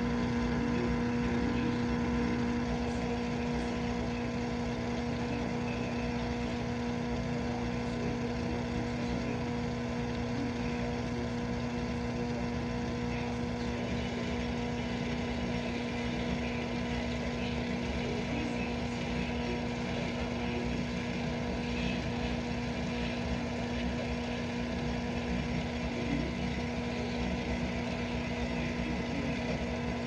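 GE dishwasher running mid-cycle: a steady motor hum over an even hiss of water, easing slightly about two seconds in.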